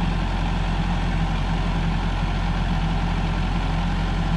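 Kubota compact tractor's diesel engine running steadily at a low, even speed, with no revving.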